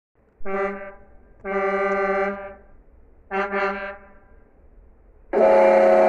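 Truck horn honking: a short blast, a longer blast of about a second, then a quick double toot, all on one steady note. About five seconds in, a louder, fuller-sounding horn with several tones starts and holds.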